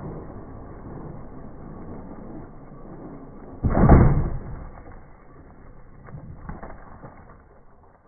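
Traxxas X-Maxx RC monster truck running over a sand and gravel lot after a jump. A loud rush of noise lasting under a second comes about three and a half seconds in, and a few weaker bursts follow. The sound fades out near the end.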